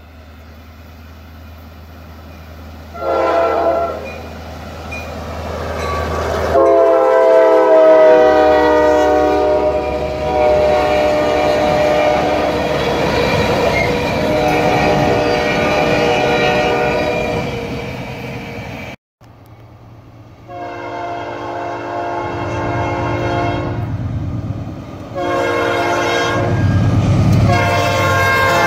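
Diesel freight locomotive horns sounding over the rumble of the train. A short blast about three seconds in is followed by a long, held blast. After a break, a second train's horn gives more long blasts.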